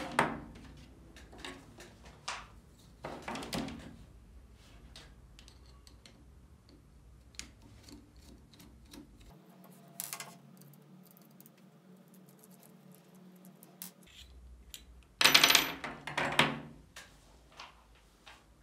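A soldering iron, its loose metal tip and a screwdriver handled on a wooden tabletop: scattered light clicks and knocks, with louder clattering about three seconds in and again about fifteen seconds in.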